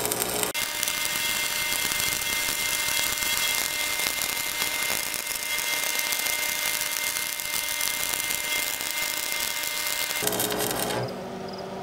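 Stick-welding arc from a Miller Thunderbolt welder running a bead on a steel brush-cutter deck: a steady crackling hiss that breaks off about eleven seconds in.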